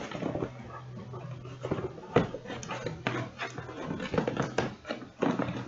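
Cardboard trading-card shipping case being opened by hand: flaps scraping and rubbing, with a run of sharp knocks and taps, over a faint steady low hum.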